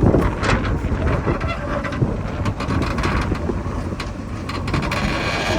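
Diesel engine of heavy machinery running steadily, with wind noise on the microphone and a few sharp knocks.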